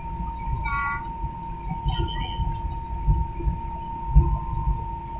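Jet airliner cabin noise while taxiing: a low, uneven rumble with a steady thin whine running underneath.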